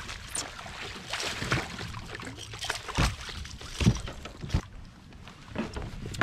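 Irregular knocks, bumps and clatter of handling aboard a fishing kayak, with a few sharper knocks around the middle and a low rumble in the first half.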